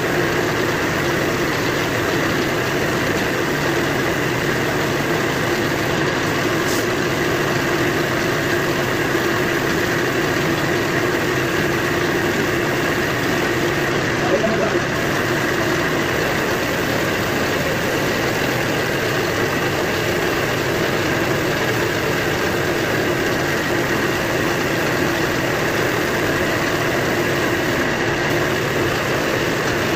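Gravity-feed spray gun hissing as it sprays paint onto a motorcycle fuel tank, over a steady motor hum.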